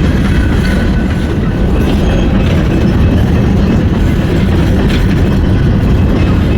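Norfolk Southern freight train rolling past: a loud, steady rumble of railcars, with a few sharper clacks of wheels over the rail joints.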